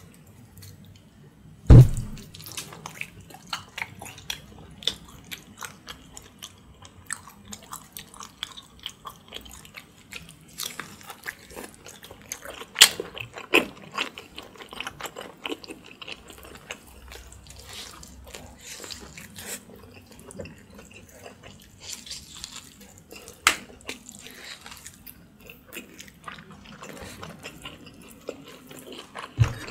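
Close-miked eating of pork backbones by hand: chewing and biting meat off the bone, with many small clicks and smacks. A loud low thump comes about two seconds in, and another near the end.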